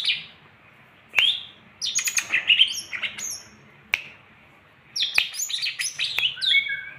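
Small songbirds chirping and twittering in bursts of quick, high, gliding notes, with gaps of a second or so between the bursts.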